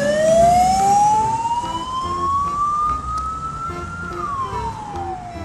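Ambulance siren wailing: one slow sweep that climbs in pitch for about four seconds, then falls away near the end.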